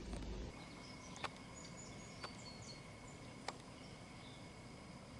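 Faint outdoor field ambience: a steady high hum with a few short, high chirps over it, broken by three sharp clicks about a second apart.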